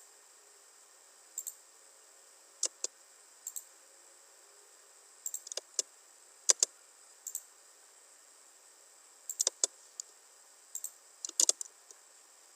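Computer mouse clicking at irregular intervals, many clicks in quick pairs, over a faint steady hiss.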